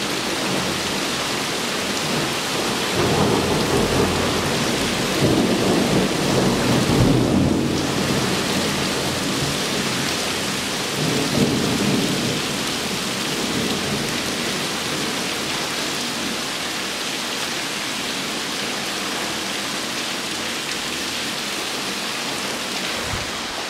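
Torrential rain pouring steadily, with thunder rolling through in long low rumbles during the first third and a shorter rumble near the middle, after which only the downpour continues.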